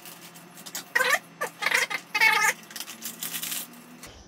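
A foil protein sachet crinkling and rustling as it is opened and its powder poured into a shaker bottle. The loudest sounds are three short, wavering cries from a cat, about a second to two and a half seconds in.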